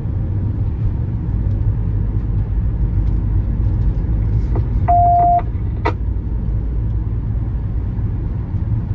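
Steady low rumble of a car driving, heard from inside the cabin. About five seconds in there is a single half-second electronic beep, with a few sharp clicks just before and after it.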